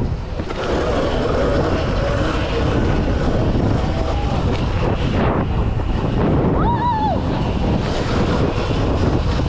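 Wind buffeting the microphone in a dense low rumble, with a short high-pitched tone rising and falling about seven seconds in.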